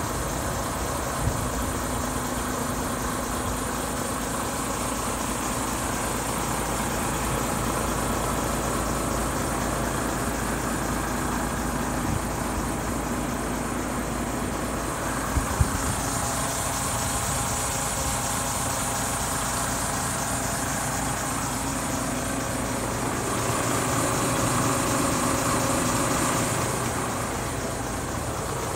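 DAF XF106 tractor unit's Paccar MX-13 straight-six diesel idling steadily. It swells a little louder for a few seconds near the end, with a few short clicks along the way.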